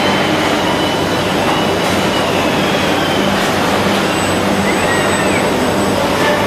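Loud, steady machine noise of a factory hall with a low hum. Faint whines rise and fall over it as the six-axis industrial robot arm moves, one arching up and down about five seconds in.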